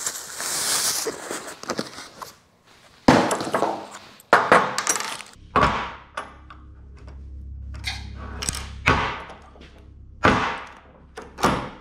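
Plastic packaging bag crinkling, then a run of sharp metal clanks and clinks as heavy steel magnetic lifters are set down and handled on a steel table. A steady low hum sits underneath from about halfway.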